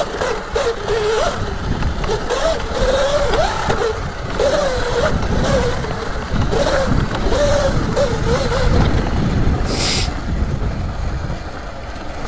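Electric dirt bike's motor whining, its pitch rising and falling over and over as the throttle is worked, over low wind rumble on the microphone. A short hiss comes about ten seconds in.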